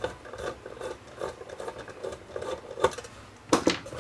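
Screwdriver turning screws out of the sheet-metal housing of an emergency light fixture, a repeated scraping rasp about three times a second, followed by two sharp knocks near the end.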